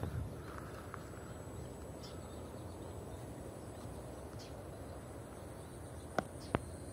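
Steady outdoor background noise with a few faint, short bird-like chirps, and two sharp clicks near the end.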